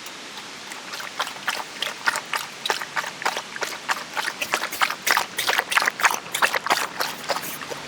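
A goldendoodle lapping water, a quick run of wet laps about three or four a second, starting about a second in.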